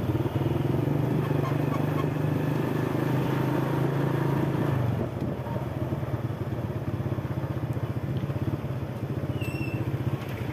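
Motorcycle engine running steadily at riding speed, then easing off about halfway through as the bike slows in traffic.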